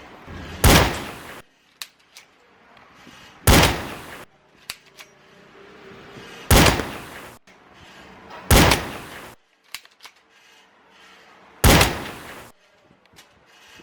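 KWA Glock 18C gas-blowback airsoft pistol firing single shots, five in all, spaced two to three seconds apart. Each shot is a sharp crack that fades over about half a second.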